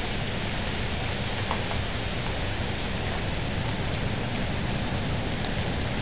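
Steady rain of Hurricane Sandy, a continuous even hiss, with a couple of faint ticks of single drops.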